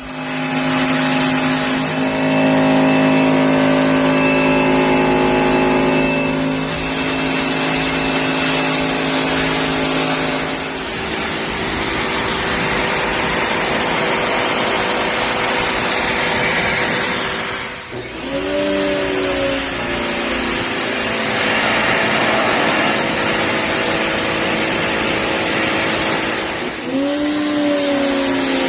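Electric pressure washer running and spraying: a steady hiss of water over the motor's hum. It starts suddenly, and twice, about two-thirds through and near the end, the motor dips and spins back up with a rising pitch.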